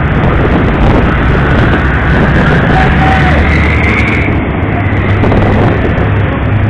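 Utility boat's engine running steadily under way: a low, even drone with a loud rushing noise of wind and water over it.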